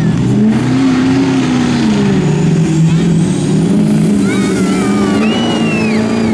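Two diesel pickup trucks at full throttle in a drag race, their engine note climbing and dropping back several times as they pull through the gears.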